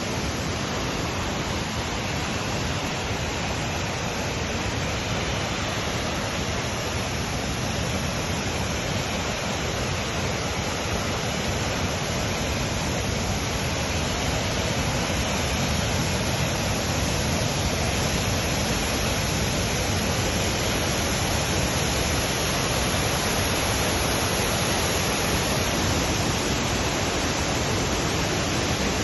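Waterfall: a steady, dense rush of falling water.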